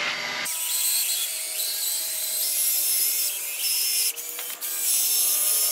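Caulking gun pressing out a bead of urethane adhesive onto a flexible solar panel: a steady hiss with a faint whine that starts about half a second in and holds at an even level.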